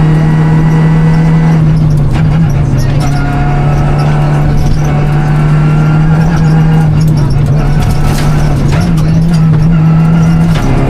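Renault Clio Rally5's turbocharged 1.3-litre four-cylinder engine heard from inside the cabin, running hard at a nearly steady pitch. The pitch shifts briefly about two seconds in and again near the end. Road noise and scattered knocks run underneath.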